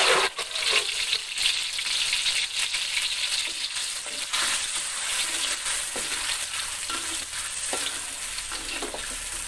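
Ground chili and shallot spice paste sizzling in hot oil in a metal wok, with a metal spatula scraping and clinking against the pan as it is stirred. The sizzle is loudest in the first second and eases a little toward the end.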